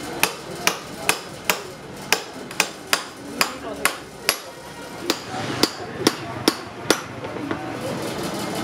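Hammer striking a chisel set into the cells of an old lead-acid battery: sharp blows about two a second, around fifteen in all, stopping about seven seconds in.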